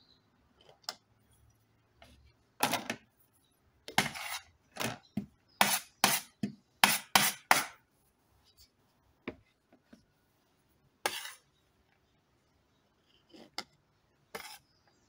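A metal spoon clinking and scraping while grated coconut is spooned into a plastic container: a quick run of short scrapes and taps in the middle, then a few scattered ones near the end.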